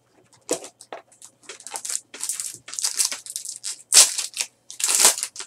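A trading card pack wrapper being pulled out and torn open, crinkling in a series of short rustling rasps that are loudest about four and five seconds in.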